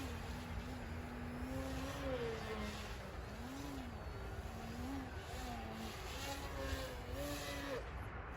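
Electric motor and propeller of a small EPP foam RC aerobatic plane, its pitch repeatedly rising and falling as the throttle is worked, over a low rumble.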